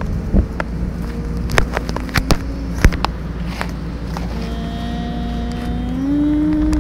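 A small electric motor of a toy vehicle whining steadily; its pitch rises near the end. Scattered sharp clicks and knocks run through it.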